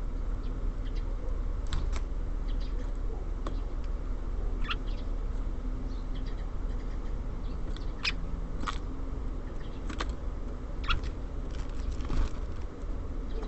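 Small songbirds at a feeder giving short, sharp chips at irregular intervals, about a dozen in all, over a steady low background rumble.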